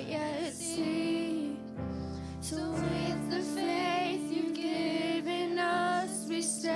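Worship music: a voice singing long, held notes with a slight waver over a steady sustained instrumental backing.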